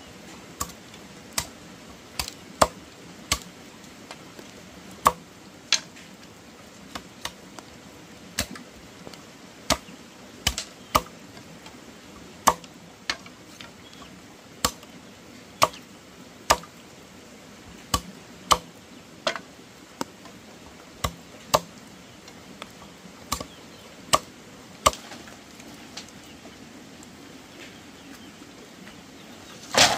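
Repeated sharp strikes of a hand tool on wood, each a single crack, coming unevenly about once or twice a second with short pauses.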